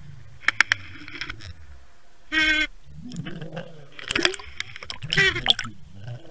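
Muffled sound from an underwater camera on a fishing line being hauled up: a low rumble with sharp clicks and knocks. A short high squeal comes about two and a half seconds in, and a cluster of clatter follows near the end.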